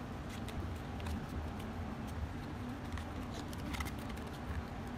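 Faint light taps and rustles of hands handling and folding thin cardboard pieces, over a steady low room rumble.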